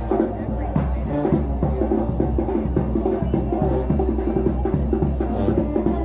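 Music with drums and a bass line keeping a steady beat.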